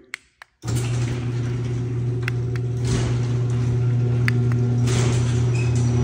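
LiftMaster garage door openers running as the sectional doors open. A loud, steady motor hum with track noise starts abruptly about half a second in, with a few sharp clicks along the way.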